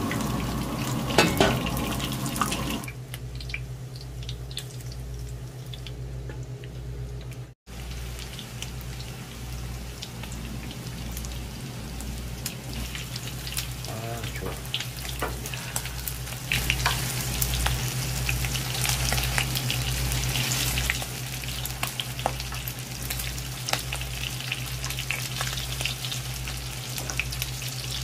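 Egg-battered oyster pancakes frying in oil in a shallow metal pan, with a steady crackling sizzle over a low hum.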